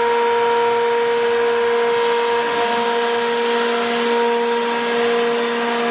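Thompson model 660 hydraulic surface grinder running: a steady machine hum with a constant whine.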